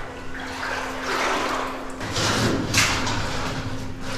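Footsteps wading through cold, shallow cave-stream water: a few swishing splashes, the sharpest about three quarters of the way in.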